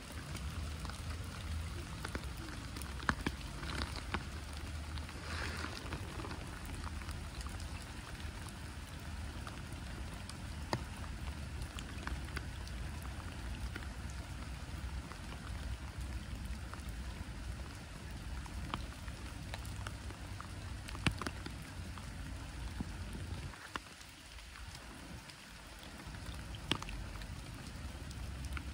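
Light rain falling on a pond: an even, steady hiss of drops on the water with scattered sharper ticks of single drops close by.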